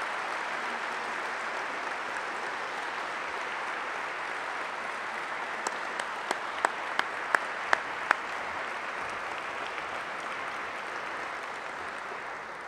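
Audience applauding steadily. A single nearer pair of hands claps loudly about eight times, roughly three claps a second, standing out in the middle of the applause. The applause thins slightly near the end.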